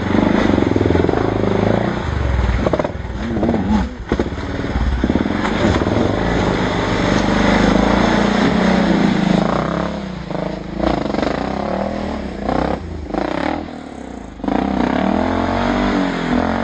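KTM enduro dirt bike engine revving hard and unevenly under load while climbing a steep rocky trail, with short drops off the throttle around 4, 10 and 14 seconds in.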